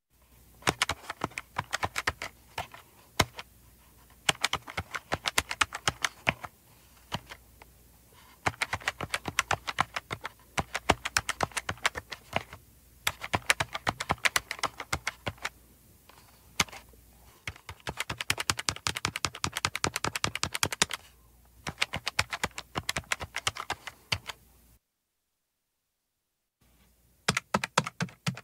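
Buttons of a plastic handheld calculator being pressed in quick runs of clicks, with short pauses between runs and a silent break of about two seconds near the end.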